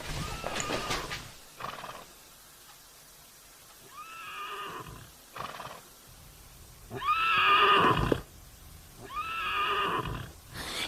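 Cat yowling in a confrontation with another cat: a series of long, drawn-out calls, the loudest about seven seconds in.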